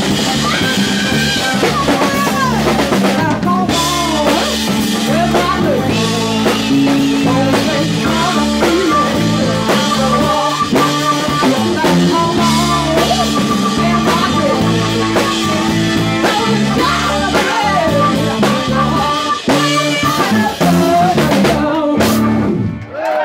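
Live blues-rock band playing: a woman singing over electric guitar, bass, keyboard and a drum kit. The band stops on a final hit about a second before the end.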